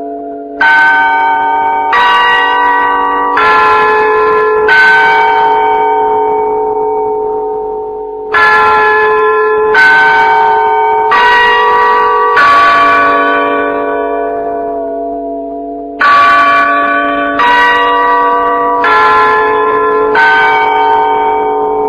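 Bells struck in repeating groups of four, each stroke on a different pitch about a second and a half after the last and ringing on as it fades. A pause of about three and a half seconds falls between groups.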